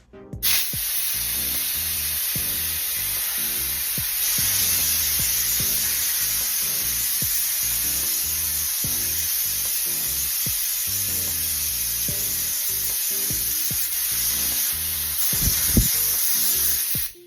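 Compressed nitrogen from a tank and regulator hissing loudly and steadily as it is let into the refrigerant hose for a high-pressure test. It starts sharply about half a second in and cuts off just before the end, with background music underneath.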